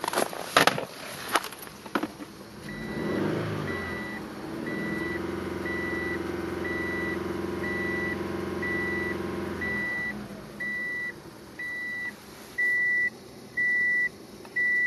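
A 2006 Subaru Forester's flat-four engine cranks, catches and runs at a steady high idle on a very cold start after the block heater, with a warning chime beeping about once a second. The owner suspects a misfire on cylinder #3 and thinks it is running a little rough. The engine sound fades out about ten seconds in, while the chime grows louder near the end.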